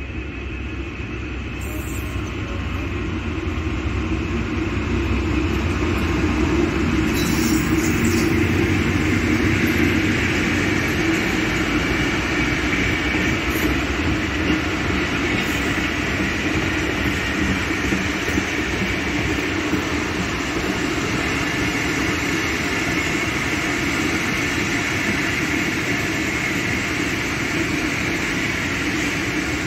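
Diesel-hauled passenger train running past along the platform. The sound grows louder over the first several seconds as the locomotive comes close, then holds as a steady noise of the coaches' wheels on the rails.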